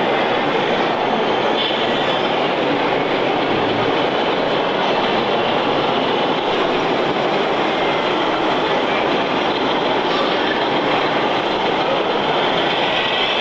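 A loud, steady rolling rumble, with faint high squeals coming in near the end.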